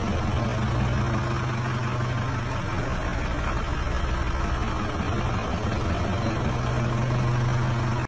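Car engine idling steadily, a constant low hum with an even pitch.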